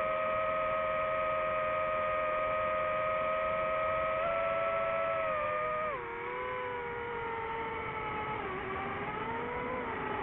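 DJI FPV drone's motors and propellers whining steadily, then dropping in pitch about six seconds in and wavering as the throttle eases off for the descent.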